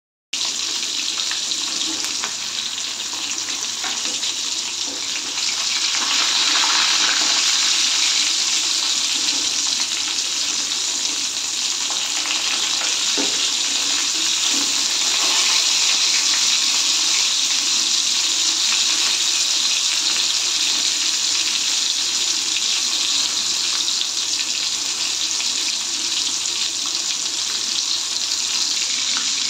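Chicken pieces frying in hot oil in an aluminium kadai: a steady sizzle that grows louder about six seconds in, with the odd light scrape of a slotted spoon turning the pieces.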